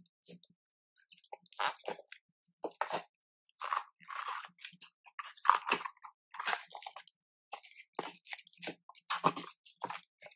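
Plastic wrap and cardboard packaging crinkling and rustling as it is handled, in short irregular bouts of crackle with brief pauses between them.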